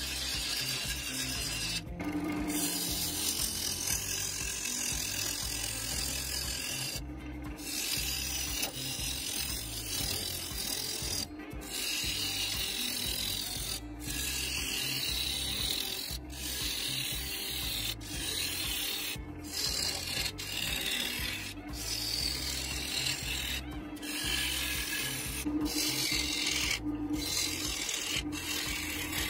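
Bowl gouge cutting green Chinese elm on a spinning wood lathe: a steady hissing, rasping scrape as long shavings peel off the bowl, broken several times by brief gaps.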